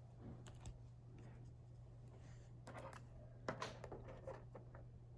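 Quiet handling of trading cards and packaging: a few faint light taps and rustles around the middle, over a low steady hum.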